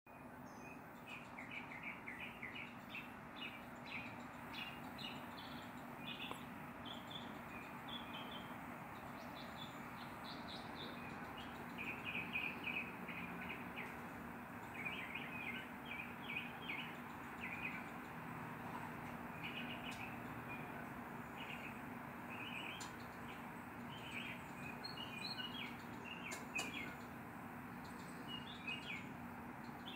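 Repeated short, high chirping calls in quick clusters, over a steady low hum and outdoor background noise.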